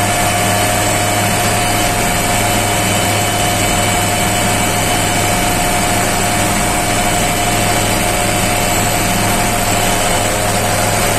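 Indian Army HAL Dhruv helicopter hovering low, its turbine engines and rotors making a steady, loud noise with a constant whine.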